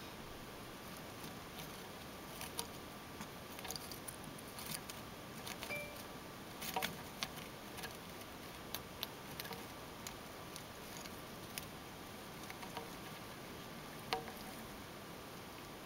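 Russian winter white dwarf hamster nibbling corn: faint, irregular little crunches and clicks from its teeth, with scattered taps as it shifts in its plastic dish.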